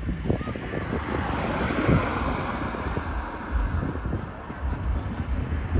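Heavy rain falling, with wind buffeting the microphone in low rumbling gusts.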